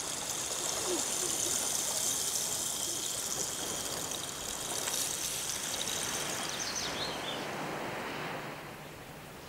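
Seawater washing and draining over rocks, a steady hiss that eases off about eight seconds in, with a few faint high chirps shortly before.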